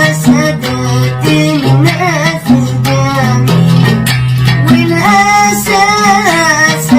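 Yemeni traditional music: a plucked string instrument playing a melody over changing low notes.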